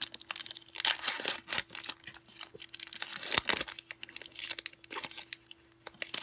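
Foil booster-pack wrapper crinkling and tearing as it is opened by hand, in a string of irregular crackles and rustles.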